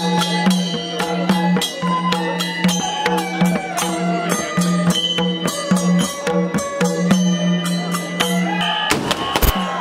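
Newar dhimay drums, bamboo flutes and small hand cymbals playing traditional processional music: steady drum and cymbal strikes under a held flute melody. Near the end the music thins into a noisier burst of crowd sound.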